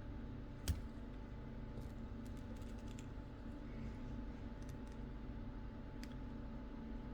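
A few light clicks, the sharpest about two-thirds of a second in, over a steady low hum.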